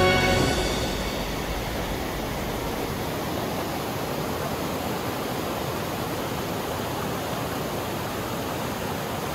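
Steady rush of water, an even hiss with no rhythm or pitch.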